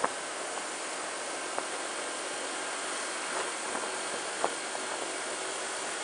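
Steady rush of wind and road noise on a motorcycle's camera microphone at expressway speed, with a couple of faint ticks.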